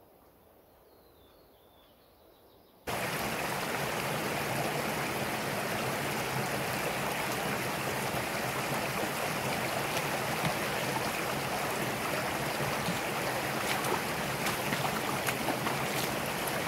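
Quiet forest at first. Then, about three seconds in, a shallow rocky mountain stream starts abruptly, rushing and splashing over stones, loud and steady.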